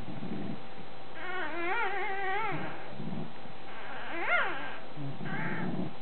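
Newborn British bulldog puppies whining and squealing while suckling. There is a long wavering whine about a second in, a sharp squeal that rises and falls just after four seconds, and a short one near the end, with low grunting noises in between.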